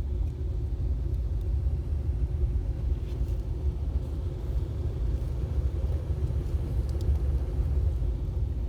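Steady low rumble with a faint, even hum above it, as of a Trane gas packaged HVAC unit running.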